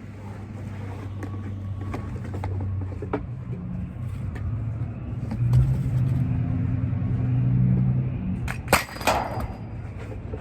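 A motor vehicle's engine running steadily, its pitch rising and falling partway through. Scattered clunks and knocks of objects being handled, with a sharp knock about nine seconds in.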